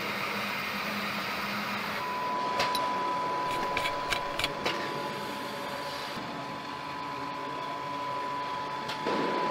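Assembly-line noise: a steady hum with a constant high tone, and a handful of sharp clicks around the middle as orange high-voltage cable connectors are pushed home on an electric truck's power unit.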